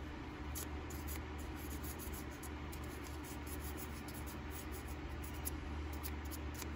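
Faint, steady scratching of fine 1,000-grit sandpaper rubbed by hand along the edge of a small metal folding-knife part, taking down its sharp edges.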